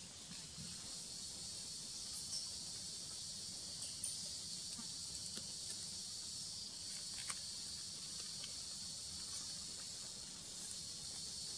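Steady, high-pitched insect chorus that runs unbroken, with a few faint clicks scattered through it.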